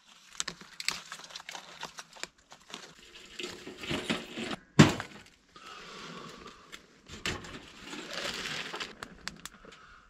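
Kindling catching in a small metal wood stove: crackling and snapping, with rustling and handling clicks, a sharp knock about five seconds in, and two stretches of steady hiss.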